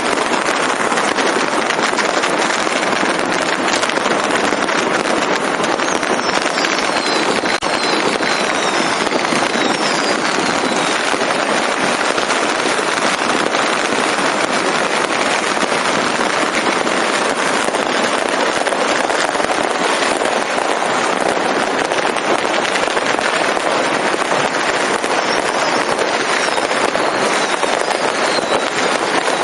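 Fireworks and firecrackers going off all around at once, a dense, unbroken crackle with no gaps. A few faint falling whistles sound about a quarter of the way in and again near the end.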